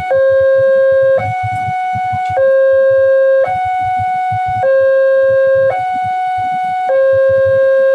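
Railway level-crossing alarm sounding its warning that a train is approaching: a two-tone electronic signal that alternates between a lower and a higher tone, each held for about a second.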